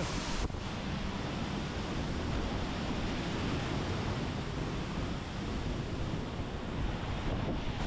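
Waterfall close up: the steady, heavy rush of falling water crashing down.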